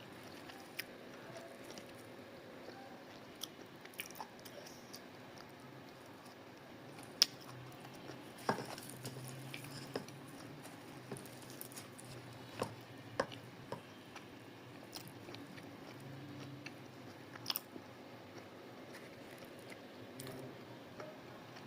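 A person eating spicy chicken with luchi: chewing and biting, with soft wet clicks and crunches scattered irregularly, the sharpest about seven seconds in.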